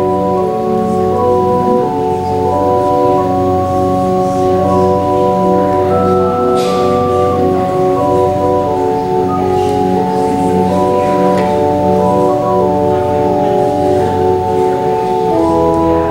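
Organ playing slow, sustained chords that change every second or two over a held bass line. A brief sharp noise sounds over it about six and a half seconds in.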